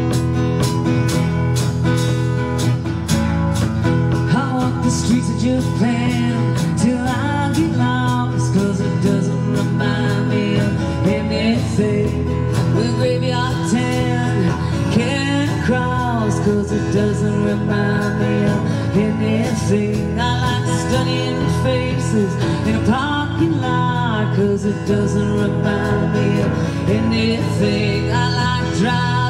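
Country band playing live on acoustic guitars, strummed steadily, with a woman's lead vocal coming in a few seconds in.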